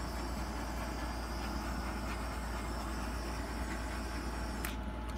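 Small handheld butane torch hissing steadily as its flame is passed over wet acrylic paint to bring up cells. The hiss thins briefly near the end.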